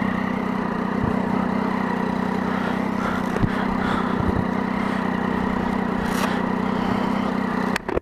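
Triumph Daytona 675's inline three-cylinder engine idling steadily, with a few light knocks. The sound breaks off abruptly right at the end.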